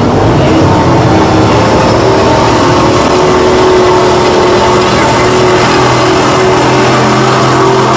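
Ford Super Duty pickup's engine running hard at steady revs under heavy load while it pulls a weight-transfer sled.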